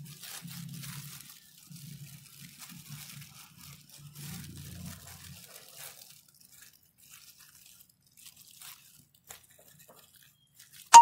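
Thin polythene shopping bag crinkling and rustling in the hands as it is gathered and tied with thread around the base of a potted cutting, busy at first and thinning out after about six seconds. A sharp click at the very end.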